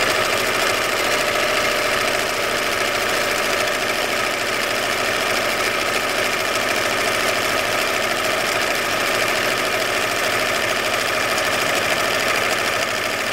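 Bernina 930 electronic sewing machine running steadily at speed, sewing a decorative embroidery stitch through fabric.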